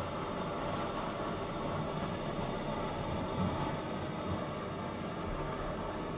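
Steady mechanical hum and hiss of a Mir deep-sea submersible's machinery running in its cabin.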